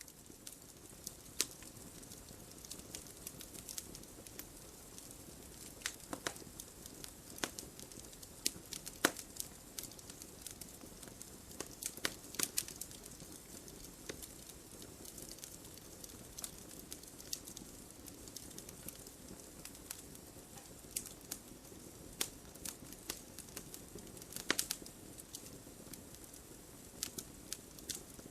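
Wood logs burning in a fireplace: a steady soft rush of flame with frequent irregular crackles and sharp pops, a few louder snaps scattered through.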